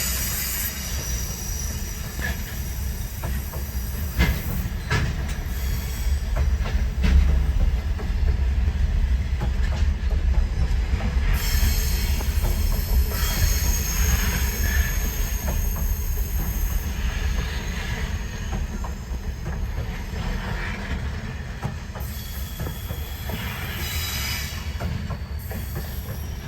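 Freight train rolling past: a steady rumble of wheels on rail with occasional knocks, and a high-pitched wheel squeal through the middle stretch.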